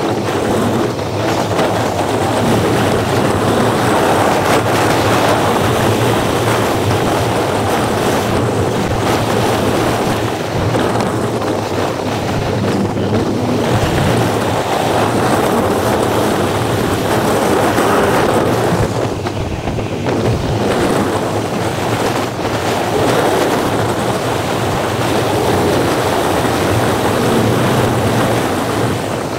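Wind rushing over the microphone of a camera mounted on a moving car, mixed with steady road noise from the car driving. The sound is a dense, steady rush that swells and eases slowly.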